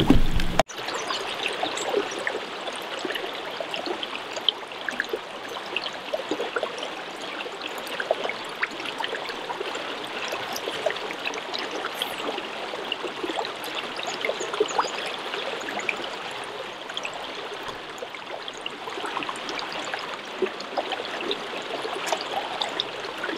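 River current running steadily over a shallow run, a constant rushing with many small burbles and splashes.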